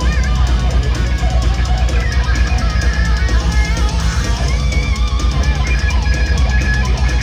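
Heavy metal band playing loud and live: an electric lead guitar line with bent, wavering notes over fast drums and heavy bass.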